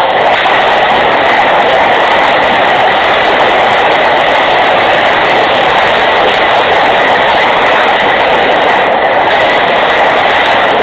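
Loud, steady rushing hiss with a faint high tone running through it, unbroken throughout.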